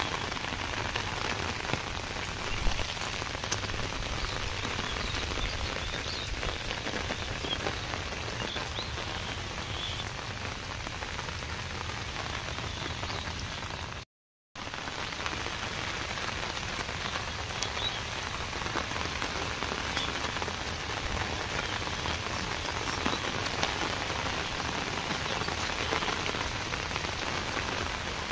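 Steady rain, a constant patter of drops. The sound cuts out for half a second about halfway through.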